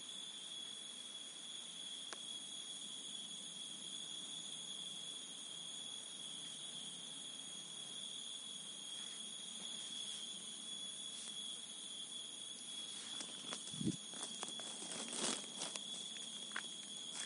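Steady, high-pitched chirring of crickets and other insects in tropical forest. Near the end, a short run of clicks and rustles, with one brief thump.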